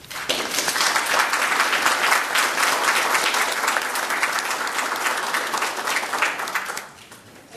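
Audience applauding: many people clapping together, starting all at once and fading out near the end.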